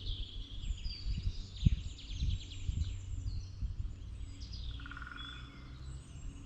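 Several songbirds singing and chirping, with overlapping high chirps, quick trills and sliding notes, and a short buzzy trill about five seconds in. A few low thumps, footsteps on the path, fall in the first half.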